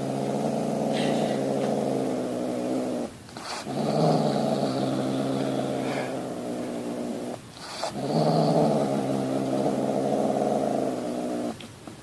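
A pet's long, low growls: three drawn-out growls with short breaks between them.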